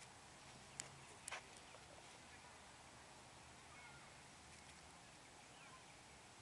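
Near silence: a faint steady hiss, with two faint clicks about a second in.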